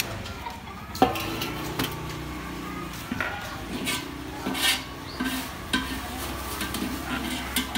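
Scattered clinks and knocks of a stainless steel colander of cooked crabs being handled, the crab shells shifting against the metal; the sharpest knock comes about a second in.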